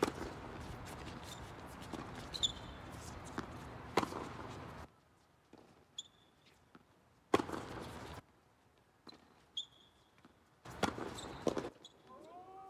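Tennis rackets striking the ball in a doubles rally on a hard court: a few sharp pops a few seconds apart, with brief high squeaks between them. A wavering call starts near the end.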